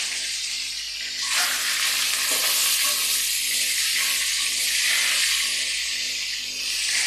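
Hot oil sizzling in an aluminium karahi as whole peeled boiled duck eggs are added and fried, with a metal spatula moving them. The sizzle swells about a second in and stays strong.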